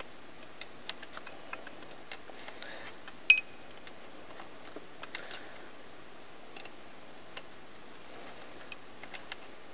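A wrench working on the AN flare fitting of a braided turbo oil feed line: scattered light metallic clicks and ticks, with one sharper clink about three seconds in.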